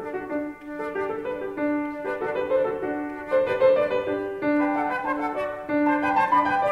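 Instrumental music: a slow melody of held notes over accompaniment, with no firework bangs standing out.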